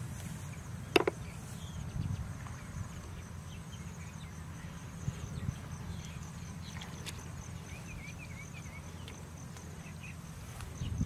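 Insects trilling steadily in one high, even tone over a low rumble, with a single sharp knock about a second in and a brief run of bird chirps about two-thirds of the way through.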